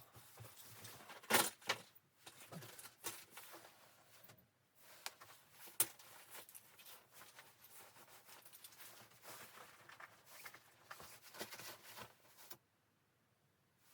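Faint rustling with scattered light knocks and clicks, as of gear being handled, stopping abruptly near the end.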